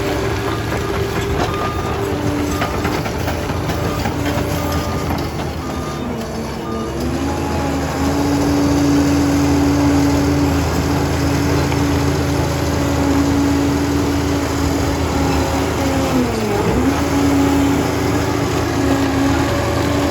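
Liebherr 746 crawler dozer's diesel engine running steadily, with a string of short repeated beeps in the first several seconds. About seven seconds in, a strong steady whine joins and the sound grows louder. Near the end the pitch sags briefly and recovers.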